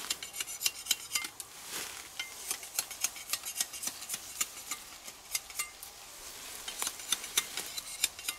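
Machete clearing the side shoots off a freshly cut bamboo pole, with brush and dry leaves crackling: a quick, irregular run of sharp taps, clicks and snaps.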